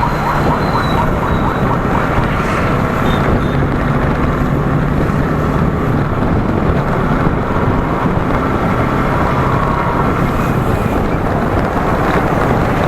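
Motorcycle engine running steadily while riding, mixed with a constant rush of road and wind noise.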